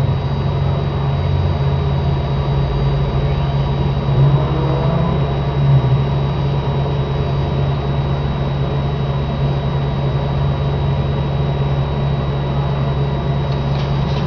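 Steady low hum with hiss and a thin, steady high tone; a faint rising tone passes about four seconds in.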